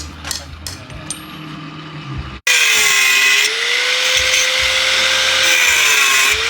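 A few light clicks and taps over a low hum. Then, after a sudden cut, an electric power tool runs loud and steady, its motor pitch sagging twice as it is pressed into the work.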